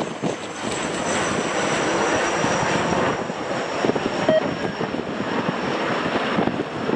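Jet airliner's engines running close by on approach, a steady roar with a high whine that slowly falls in pitch, with wind buffeting the microphone.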